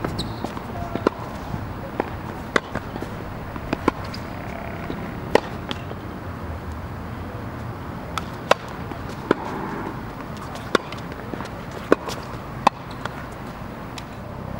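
Sharp pops of tennis balls struck by a racket and bouncing on a hard court, irregularly spaced, about one every second or two, over a steady low outdoor background.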